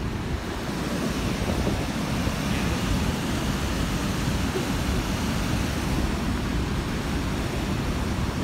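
Steady rushing of river water pouring over a wide weir and running in rapids below, with wind buffeting the microphone.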